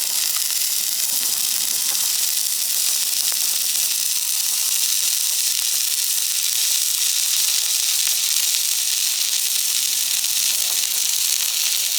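Electric arc of stick (arc) welding burning steadily: an even, unbroken crackling hiss, strongest in the treble.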